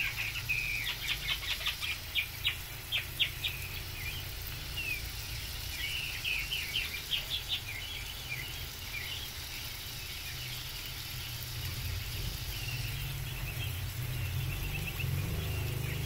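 Quail chirping: quick runs of short, high chirps for the first nine seconds or so, thinning out after that, over a steady low hum.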